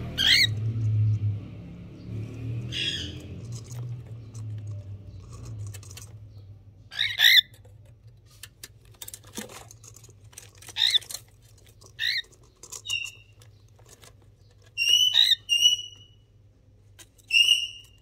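Cockatiels giving short, sharp chirping calls now and then, about eight in all, several coming close together in the last few seconds.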